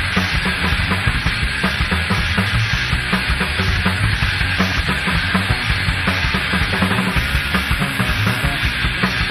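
Punk band playing a song live, the full band with drum kit.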